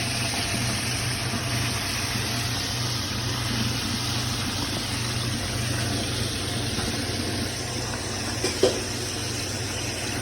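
Steady low machine hum under an even hiss, with a single brief knock about eight and a half seconds in.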